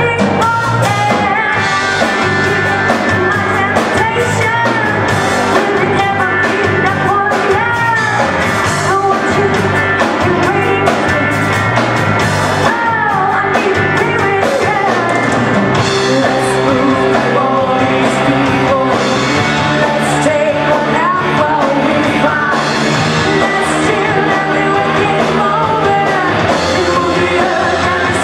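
Band playing rock music loudly, with a lead singer singing into a microphone over drums and keyboard.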